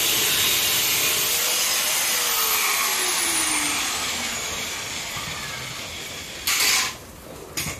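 Ozito abrasive cut-off saw grinding through a steel pipe, then switched off about two seconds in, its motor and blade falling in pitch and fading as they coast down. A short loud burst of noise sounds near the end.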